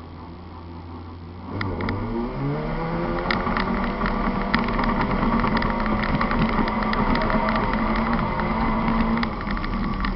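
Volkswagen Polo autocross car's engine, heard from inside the car: it idles, then about a second and a half in it revs up as the car launches and pulls away, rising in pitch and running hard. Sharp clicks throughout, from gravel and dirt striking the car. The engine eases briefly near the end.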